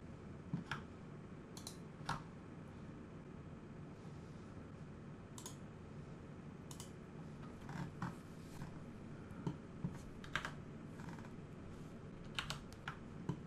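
Faint computer mouse and keyboard clicks, scattered irregularly about a dozen times, several close together near the end, over a low steady hiss.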